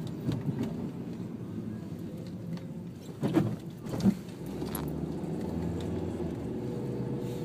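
Steady road and engine noise heard inside a moving car's cabin, with two short knocks about three and four seconds in.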